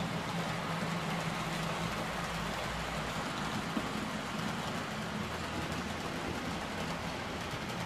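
H0-scale model freight train running past on the layout track: rolling wheel noise with a steady low hum.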